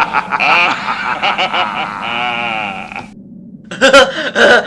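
A voice making a drawn-out wordless vocal noise, wavering in pitch, then after a short pause a further burst of wordless vocal sounds.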